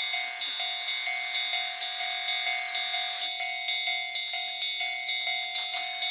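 Japanese level-crossing warning bell ringing in a steady electronic clang, about two and a half strokes a second, with a rushing noise underneath until about halfway through.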